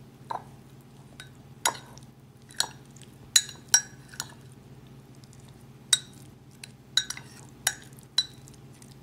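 Metal spoon stirring shredded chicken with mayonnaise in a bowl, knocking against the bowl's side in irregular sharp clinks, roughly one a second, over a faint low hum.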